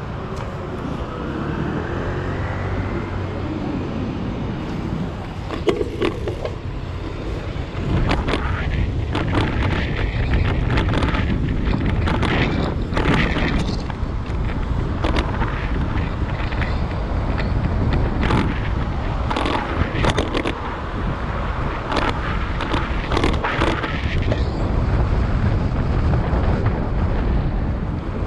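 Wind buffeting the microphone and street traffic noise heard from a moving bicycle. A rising whine comes in the first few seconds, and many short knocks and rattles follow through the middle.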